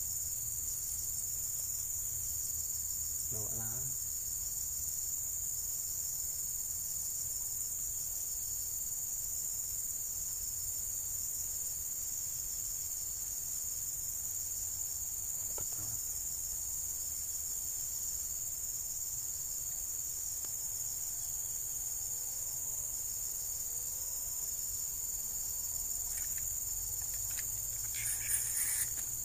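Steady, high-pitched chorus of insects. A brief louder noise comes near the end.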